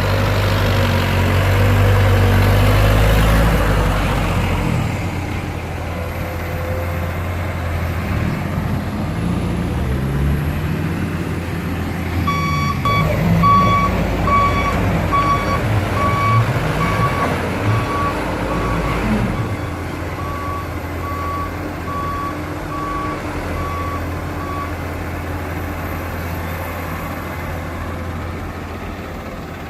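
Heavy diesel engine running, louder for the first few seconds, while a reversing alarm beeps about once a second for some twelve seconds in the middle, with one short break.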